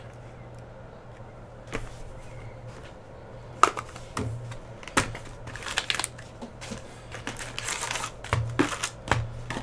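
Cardboard hobby box of trading cards being opened and its foil packs pulled out by hand: a string of sharp taps and clicks from the cardboard and packs, with short bursts of foil crinkling, over a steady low hum.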